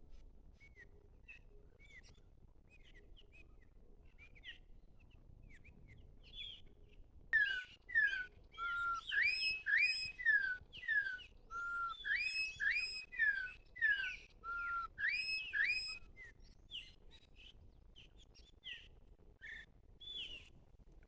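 Campo troupial (corrupião) song played from a small speaker as a lure: a loud run of slurred whistled notes, rising and falling, starting about seven seconds in and stopping about sixteen seconds in. Faint scattered chirps of other birds come before and after it.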